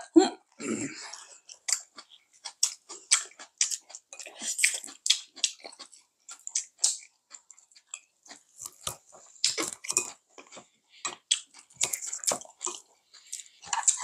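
Two people chewing food and smacking their lips, an irregular string of short smacks and clicks.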